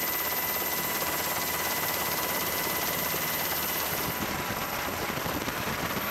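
Steady aircraft engine noise: an even rushing hiss with a faint high steady whine, thinning slightly in its upper part after about four seconds.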